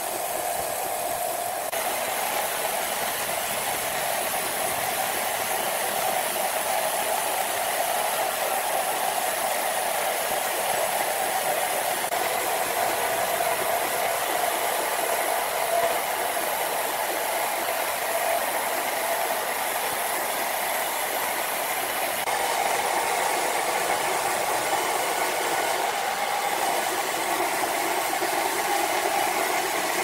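Large horizontal band sawmill ripping through a giant mahogany log: the band blade cutting the wood and the mill's motor running, a steady hum with hiss above it.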